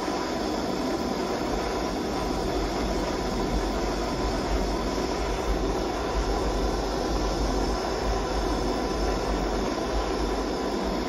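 Handheld gas soldering torch burning with a steady rushing hiss, its flame heating a small steel joint to melt solder.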